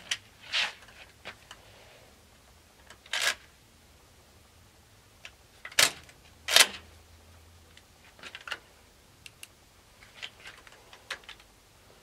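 Shotgun being handled: a few sharp metallic clacks, the loudest two close together just past halfway, then a scatter of lighter clicks.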